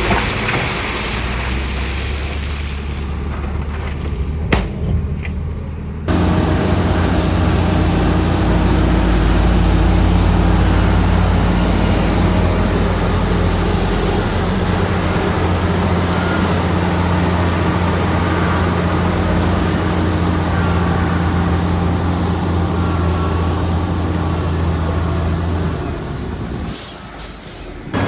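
Heavy diesel earthmoving machinery running steadily with a low engine drone. The sound changes abruptly about six seconds in and dips briefly near the end.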